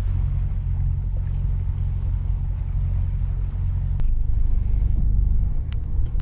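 The sailboat's inboard diesel engine running at slow speed, heard from the bow as a steady low rumble, with a single sharp click about four seconds in.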